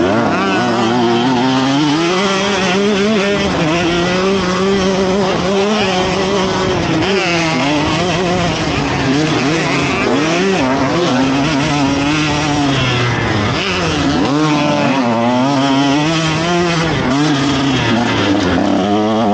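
KTM 150 SX single-cylinder two-stroke motocross engine being ridden hard, its pitch rising and falling over and over with the throttle.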